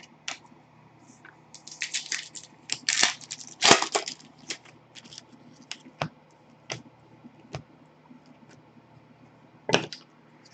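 Trading cards being handled and flipped through on a desk: a run of quick clicks and slaps about two to four seconds in, then single sharp clicks every second or so as cards are set down.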